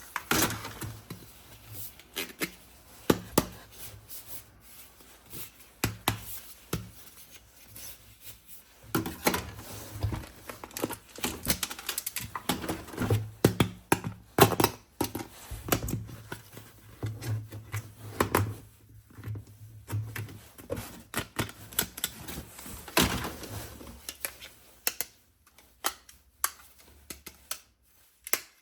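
An irregular run of sharp clicks, taps and knocks from hard objects being handled, thinning out near the end.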